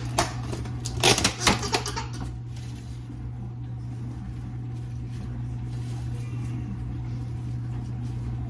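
A few sharp clicks and rustles from salad-making, all in the first two seconds, over a steady low hum.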